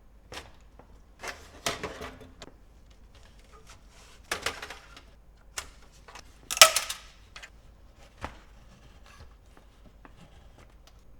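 Plastic and metal parts of an Apple Performa 580CD clicking and clattering as they are handled and pulled apart during disassembly, in several separate bursts, the loudest clatter about two-thirds of the way through.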